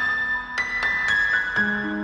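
Background piano music: single notes struck one after another over a held low note.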